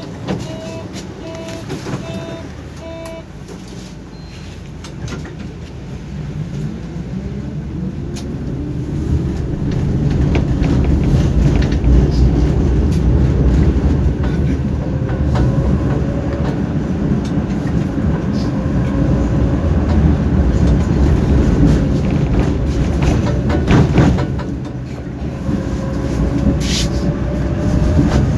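Inside a moving tram: a run of short beeps in the first few seconds, then the tram pulls away with its motor whine rising in pitch and the running rumble growing louder, then it runs on steadily with clicks from the rails.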